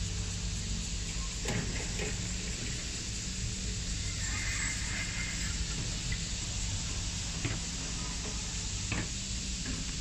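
Steady outdoor background hiss with a low hum, broken by a few soft clicks.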